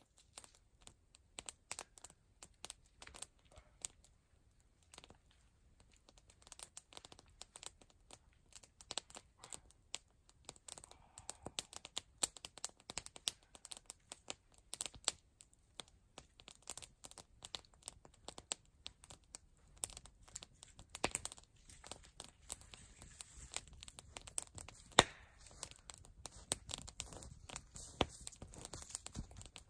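Faint, irregular crackling and rustling: scattered small clicks, with a few sharper cracks standing out now and then.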